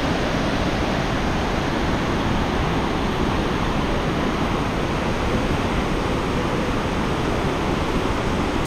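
Jōren Falls, a waterfall in heavy flow, pouring down with a steady, even rush of falling water and spray.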